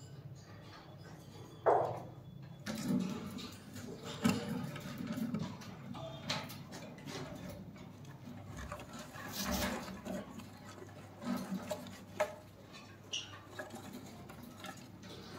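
Young parrots moving about in a wooden nest box: scattered scratches, scuffs and light knocks of feet and bodies on wood shavings and the box's boards.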